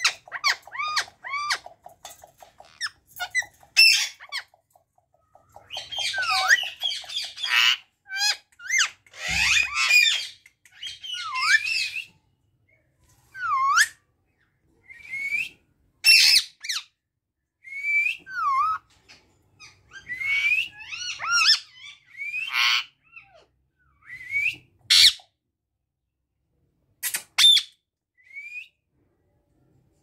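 Pair of Indian ringneck parakeets calling: a string of short squawks and whistled calls, many of them dipping in pitch and rising again, broken by short pauses.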